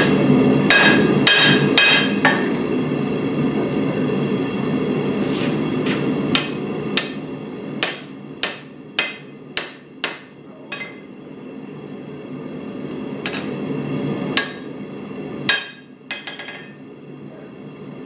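Hand hammer striking a red-hot steel cleaver blade on an anvil, each blow ringing: a quick run of about four blows near the start, a series of spaced blows from about five to eleven seconds in, and a few single blows later. A steady roar from the forge runs underneath.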